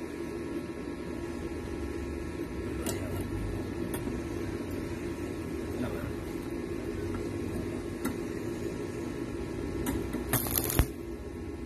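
Stick welder humming steadily, with a few light metal clicks, then a short crackle of the arc about ten seconds in as a tack weld is struck on a bent steel flat-bar ring.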